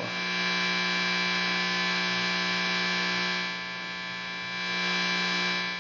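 AX84 tube guitar amplifier with volume and both drive stages turned all the way up, putting out a steady 60 Hz mains hum and buzz with many high overtones. It drops for about a second past the middle, then comes back. The owner does not know whether this much 60 Hz noise is normal for the amp.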